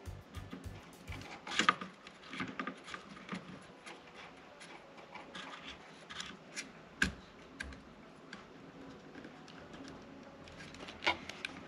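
Scattered light clicks and scrapes of hands working a small part into a computer component's socket, with a sharper click about seven seconds in.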